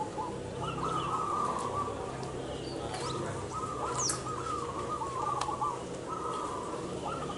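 Many caged zebra doves (perkutut) cooing in overlapping, repeated rippling phrases. A brief high chirp comes about four seconds in.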